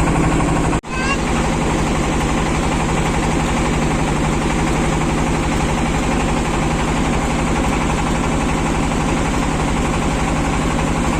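Klotok river boat's inboard engine running steadily with an even, fast putt-putt pulse. The sound drops out for an instant under a second in, then carries on unchanged.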